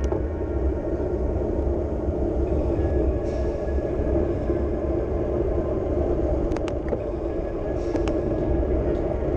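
Wind rushing over the microphone of a handlebar-mounted camera, with the hum of road bike tyres on asphalt, on a downhill descent. The rumble is steady, with a few small ticks in the second half.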